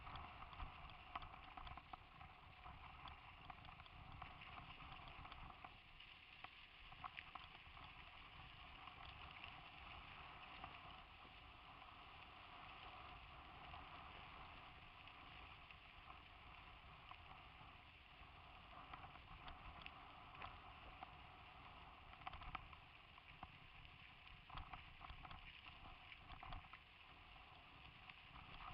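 Faint rattling and irregular small knocks of a helmet-mounted camera on a mountain bike riding over a rough dirt track, over a low rumble.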